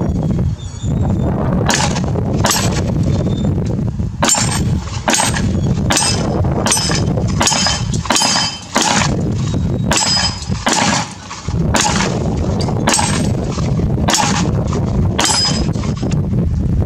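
Canik SFx Rival 9mm pistol firing a rapid string of shots, a little more than one a second, with steel plates ringing on the hits. Steady wind noise rumbles on the microphone.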